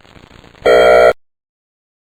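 ESC-864 electronic siren sounding its airhorn tone: one short blast about half a second long, beginning about half a second in after the echo of the previous blast has died away, then silence.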